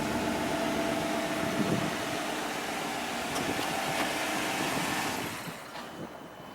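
Chevrolet Avalanche's V8 idling steadily just after a remote start. The engine sound falls away about five seconds in.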